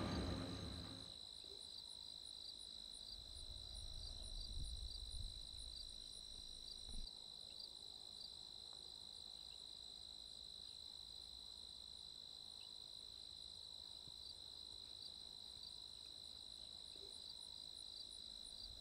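Crickets chirping: a faint, steady, high trill with an even pulse. In the first second the tail of a louder sound dies away, and faint low rumbles with a soft thump come in about four to seven seconds in.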